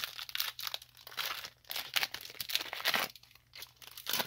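Foil Pokémon booster pack wrapper being torn open and crinkled by hand, in irregular rustling tears with a short lull near the end.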